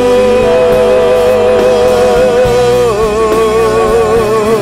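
Church worship music: a singer holds a long note with vibrato over band accompaniment, stepping down to a lower note about three seconds in.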